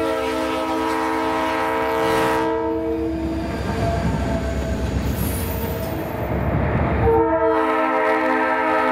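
Air horn of an EMD SD45T-2 diesel locomotive. It sounds one long blast that fades out about three and a half seconds in, with the locomotive and train rumbling beneath. A second blast starts about seven seconds in.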